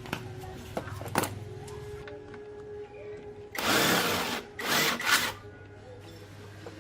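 Hand-tool work on a small engine: a couple of sharp metal clicks, then three short, loud bursts of hissing noise, the first the longest, over a low steady hum.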